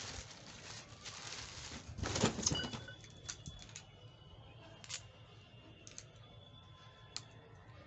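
Clear plastic parts bag crinkling as it is lifted and handled, loudest at the start and again about two seconds in. A few light clicks and taps follow as a coiled high-pressure hose with its plastic fittings is lifted out of the box.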